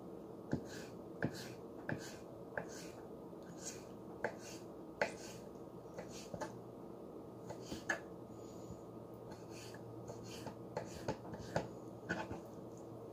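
Small kitchen knife slicing bananas on a wooden cutting board, the blade knocking on the board in sharp, irregular taps, over a steady low background hum.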